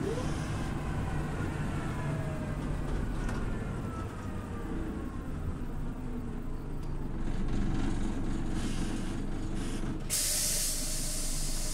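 Scania OmniLink city bus running with its diesel engine droning while faint whines fall in pitch over several seconds. About ten seconds in, a sudden loud hiss of compressed air comes from the bus's pneumatics.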